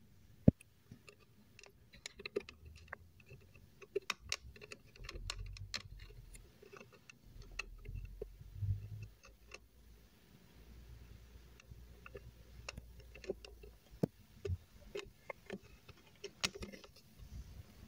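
Irregular small clicks and ticks of a screw and metal mounting bracket being handled and tightened by hand, with soft handling bumps.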